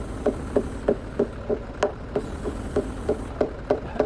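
Steady rhythmic hammering on timber, about three blows a second: a mallet driving wooden joints of a house frame together.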